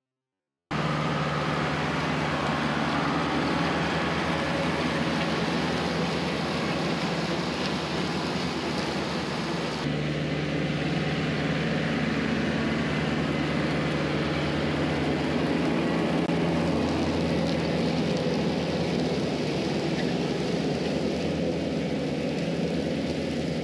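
Kubota L4060 tractor's diesel engine running steadily under load, driving a mower through tall grass, with the rush of the cutting blades over the engine drone. It starts abruptly under a second in.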